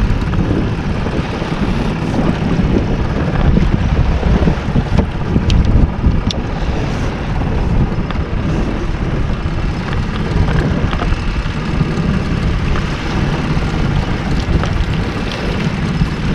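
Wind rumbling and buffeting on the microphone, over the steady running of the boat's outboard motor at trolling speed.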